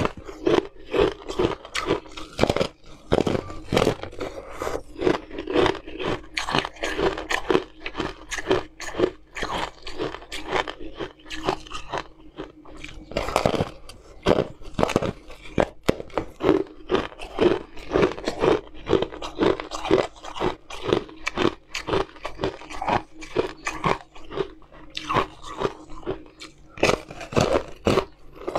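A thick disc of frozen coloured ice being bitten and crunched between the teeth, with sharp cracks coming one or two a second in an irregular run, and chewing of the broken pieces in between.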